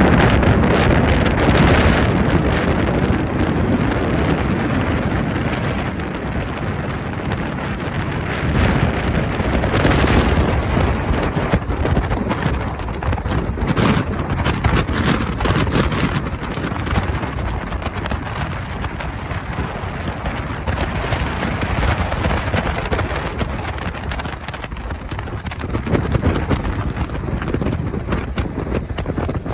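Wind buffeting the microphone on a moving boat: a loud, gusty rushing that swells and eases.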